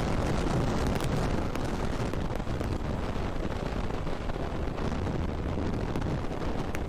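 Steady wind rushing over the microphone while riding a Yamaha RX 135 two-stroke motorcycle at highway speed, with the engine running underneath.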